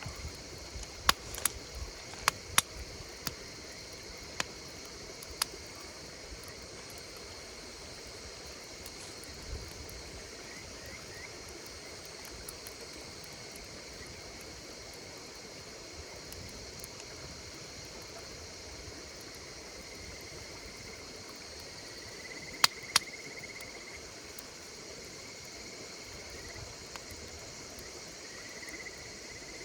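Wood fire crackling with occasional sharp pops, a cluster of them in the first few seconds and two more about two-thirds of the way through, over a steady high chorus of insects calling.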